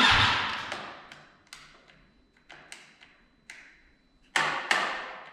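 A loud sharp knock that rings away, then a few light clicks and two more knocks close together near the end, with no engine catching: a failed start attempt on a BMW S1000RR whose battery is dead.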